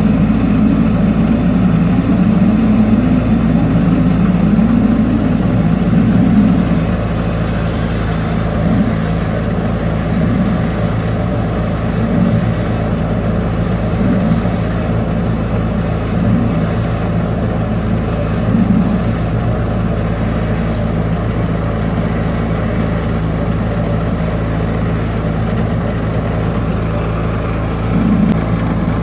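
High-pressure drain-cleaning jetter's engine running steadily under load, a loud drone that is heavier for the first few seconds and then swells briefly every couple of seconds.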